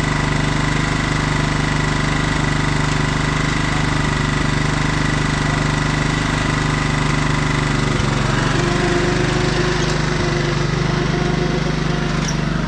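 Lawn mower engine running steadily after its belt has been refitted; about eight seconds in, its note changes.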